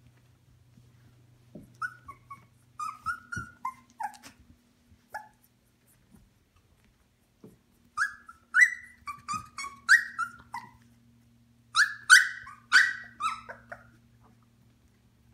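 Shikoku puppies about 18 days old crying: short, high cries that bend in pitch. A few scattered cries come first, then a louder, busier run in the second half, over a faint steady hum.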